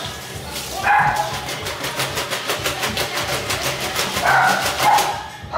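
Bunch of callaloo leaves being shaken and swished under the running tap in a stainless steel sink: wet leaves and water spattering in quick, even strokes, about six a second. A few short higher-pitched sounds come about a second in and again near the end.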